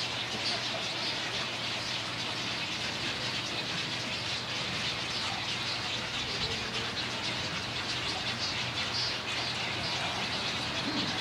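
A colony of nesting birds in a rookery calling all at once: a dense, steady chorus of many overlapping chirps and squawks, with no single call standing out.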